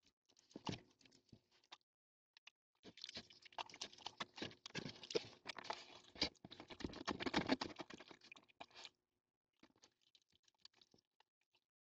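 An animal eating dry cat food from a dish close to the camera: rapid, irregular crunching and clicking, densest from about three seconds in until about nine seconds, then fainter, over a faint steady hum.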